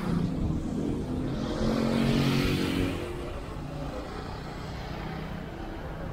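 Road traffic heard while driving: a steady low engine and road rumble. It swells louder with a rising then falling hiss for a second or so around two seconds in, then settles back.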